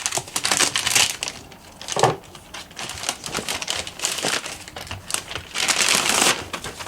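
Package wrapping being crinkled and handled as it is opened, in several rustling bursts, the longest near the end.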